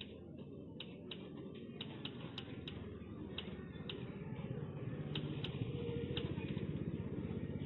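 Typewriter keys struck one at a time in an uneven rhythm, each a sharp click, over a steady low hum.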